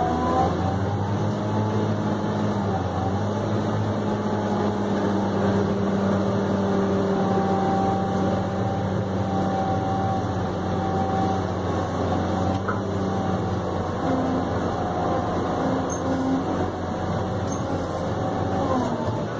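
New Holland RG140B motor grader's diesel engine running steadily under load, heard from inside the cab, while the blade works through the earth. A fainter whine rides over the engine and shifts in pitch now and then.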